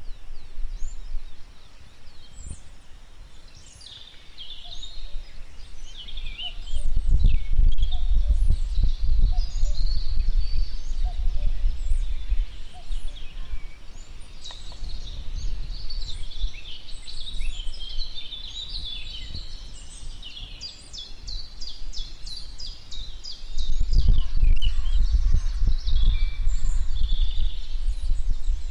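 Forest ambience: several birds chirping and singing, with a fast even trill in the middle. A low rumble swells up twice, about a quarter of the way in and again near the end, and is the loudest sound.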